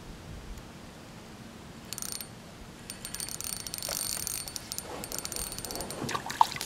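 Fishing reel clicking fast and evenly as a hooked bluegill is brought in: a short burst about two seconds in, then a steady run of about three seconds.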